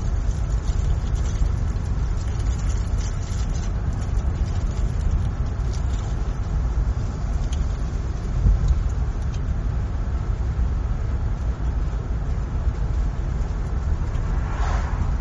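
A car driving on a road: a steady low rumble of road and engine noise, with a brief swell in the higher noise near the end.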